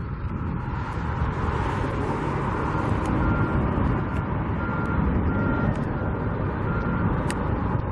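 A vehicle's backup alarm beeping, a little under two beeps a second, starting about two and a half seconds in and stopping near the end. Underneath are wind rumble on the microphone and traffic noise.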